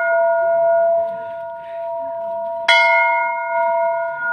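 Hanging brass temple bell ringing with a few steady, clear tones. It rings on from an earlier strike, is struck again about two and a half seconds in, and slowly dies away.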